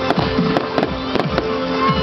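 Music with a fast steady beat and held tones, with sharp cracks scattered through it.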